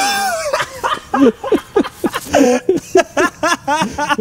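A man's voice exclaiming and laughing without clear words, ending in a quick run of short pitched bursts.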